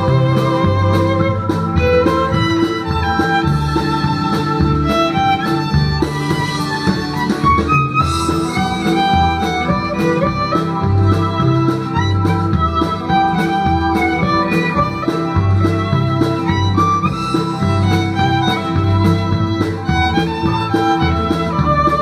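Violin and double bass duo playing a pop-style instrumental: the violin carries a melody with vibrato over a steady bass line.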